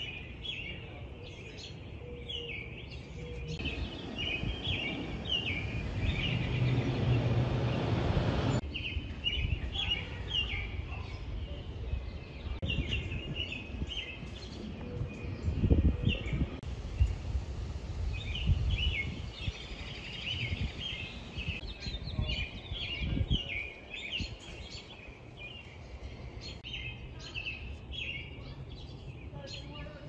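Outdoor ambience of songbirds chirping and singing in many short, varied phrases, broken by bouts of low rumble, the loudest around the middle.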